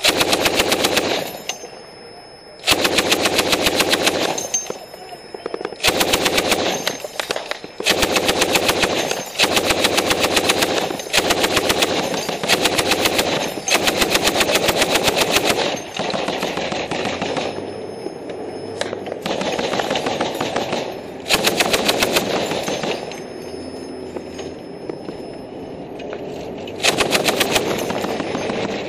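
Machine-gun fire: long bursts of rapid automatic fire, one after another with short breaks between. Some bursts are close and loud, and quieter firing runs on between them.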